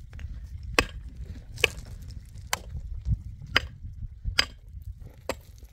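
A hand tool striking six times at a steady pace, roughly one blow a second, each a sharp chop. A steady low rumble runs underneath.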